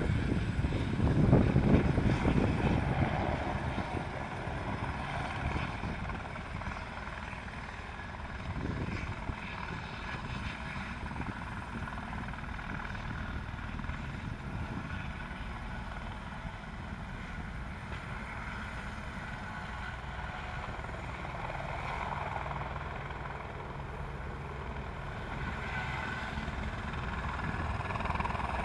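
Helicopter running at a distance: loudest in the first couple of seconds, then a steady, lower hum that grows slightly louder near the end.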